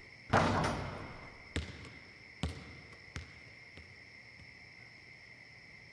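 A thrown basketball lands with a hard hit about a third of a second in, then bounces on the court four or five times, the bounces coming quicker and fainter as it settles.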